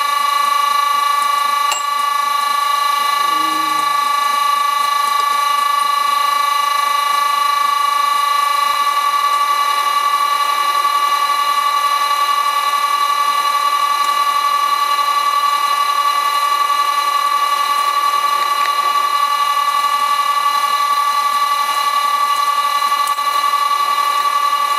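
Lathe motor driven by an old Allen-Bradley VFD, giving a loud, steady high-pitched whine of one strong tone with several higher ones above it: the drive's electrical noise coming through the motor while the lathe turns the workpiece for drilling.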